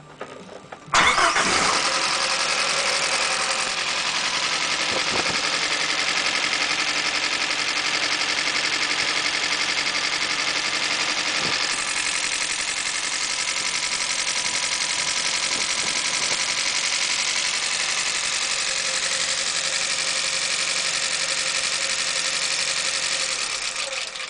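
Nissan CA18DET turbocharged 1.8-litre four-cylinder engine starting about a second in and running steadily, with a knock that the owner puts down to the camshaft. The engine sound falls away near the end.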